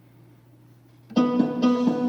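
LP6110E electronic keyboard playing an Arabic phrase on its qanun voice layered with a violin voice, starting suddenly about a second in with plucked-sounding notes over held tones.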